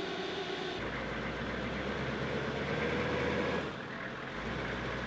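Humvee diesel engine idling, a steady low hum. The sound changes abruptly about a second in and again near the four-second mark.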